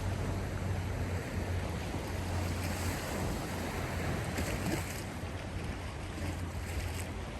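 Sea surf washing steadily, an even rushing noise that swells slightly midway, over a steady low hum.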